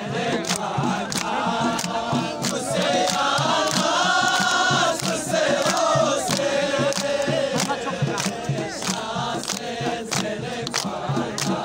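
A crowd of men singing and chanting together in a Balti folk dance song, over steady hand clapping at about two claps a second. The singing swells in the middle.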